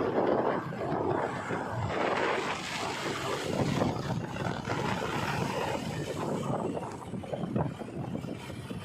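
Diesel earthmoving machinery running at a dig, a rough, uneven engine noise that swells and dips.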